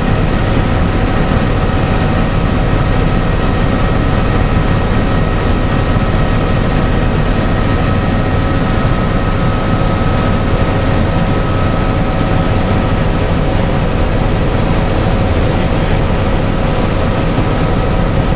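Helicopter in level flight heard from inside the cabin: a loud, steady drone of engine and rotor, with a few faint steady whining tones above it.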